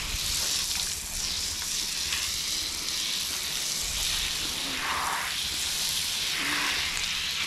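Water from a garden hose spray nozzle hissing as the jet is played over a horse's wet back and splashes off its coat. The hiss is steady, swelling a few times as the spray moves.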